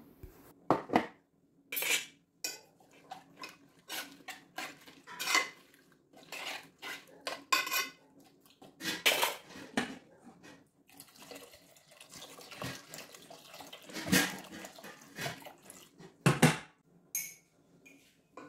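Kitchen clatter: a string of separate clinks and taps from spoons, a plastic spice box and a pressure cooker pot as spices are added to sambar, with water poured in from a mug near the end.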